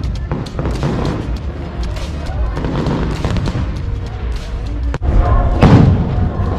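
Fireworks going off: a sharp crack about five seconds in, then loud deep booms near the end, over a background of voices and music.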